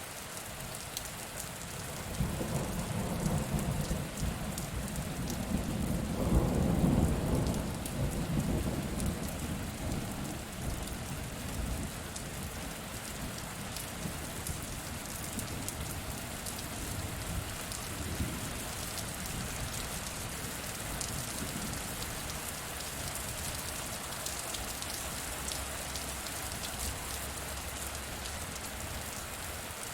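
Steady heavy rain falling on surfaces, with a roll of thunder that builds about two seconds in, peaks a few seconds later and dies away, and a fainter rumble later on.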